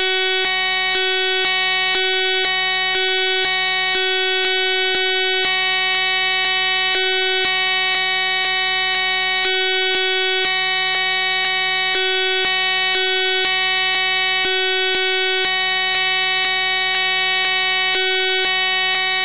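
A loud, steady electronic buzz tone, one unchanging pitch rich in overtones, standing in place of the spoken audio.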